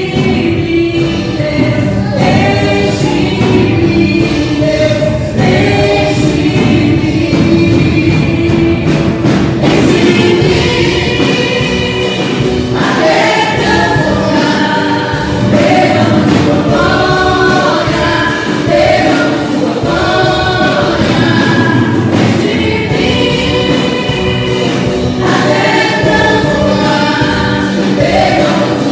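Choir singing a gospel worship song over steady musical accompaniment.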